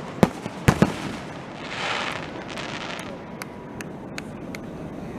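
Aerial fireworks going off: three sharp bangs in the first second, a short noisy rush around two seconds in, then a string of small sharp pops about every half second.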